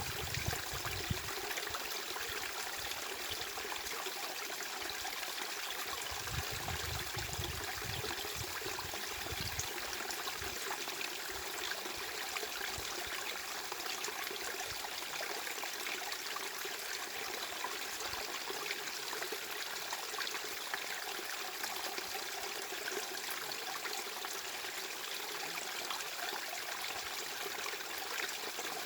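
Steady rush of running water, like a small stream trickling and splashing. A few low rumbles come through in the first ten seconds.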